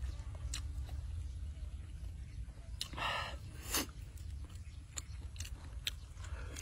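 Charred grilled eel being torn apart by hand, dipped in sauce and bitten: scattered soft cracks and clicks, with a short wet rustle about three seconds in. A steady low rumble runs underneath.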